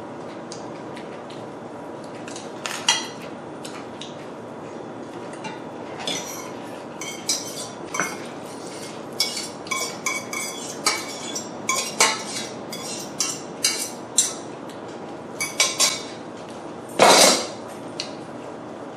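Eating utensils clinking and tapping against a bowl and dishes while eating ramen noodles, many short irregular clinks, with one louder, longer clatter near the end.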